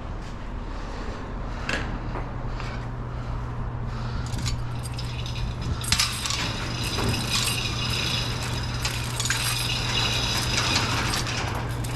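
A shade being lowered with metallic clinking and rattling, sparse at first and turning busy about halfway through, with a steady low hum underneath.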